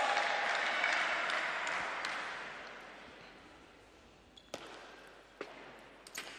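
Crowd applause fading away, then a table tennis rally starts: sharp, separate ticks of the ball on bats and table, about five strokes in under two seconds.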